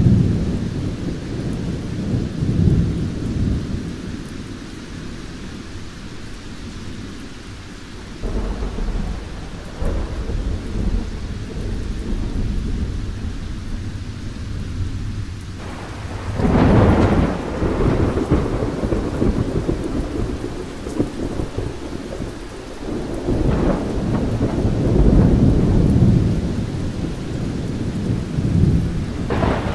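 Thunder rumbling again and again over steady rain. Several long, low rolls swell and fade, the loudest a little past halfway through.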